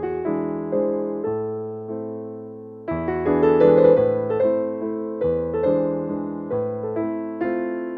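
Background music: a piano or electric piano playing a gentle tune, each note struck and then fading, with a fuller chord coming in about three seconds in.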